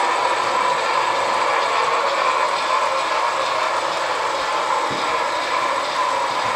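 HO-scale model freight train of about sixty cars running around the layout: a steady running noise of many small metal wheels rolling on the rails.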